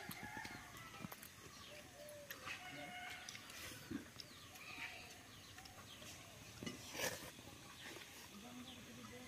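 Faint rural yard ambience: scattered short bird chirps and farm-animal calls, with a few light clicks, the sharpest about seven seconds in.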